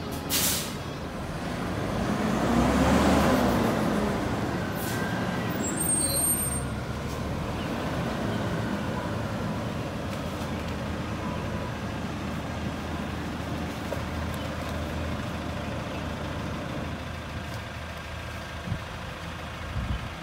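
Front-loader garbage truck's diesel engine running steadily at idle, with a sharp knock about half a second in and a louder surge of noise between about two and four seconds in.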